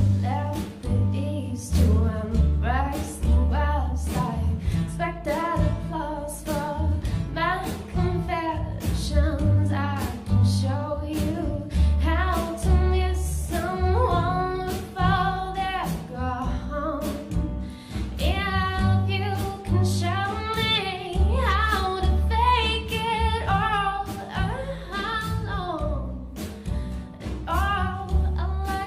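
A folk-rock band playing a song, a woman singing the melody over a steady drum beat and a bass line.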